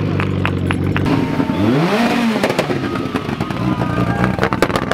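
Rally car engine running, revving up and back down about two seconds in, with a quick run of sharp cracks and clatter near the end.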